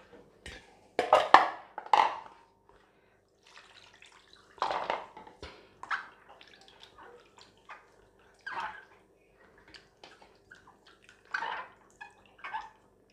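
Water splashing and sloshing in a stainless steel bowl as raw chicken pieces are squeezed and rinsed by hand, in irregular splashes a second or two apart.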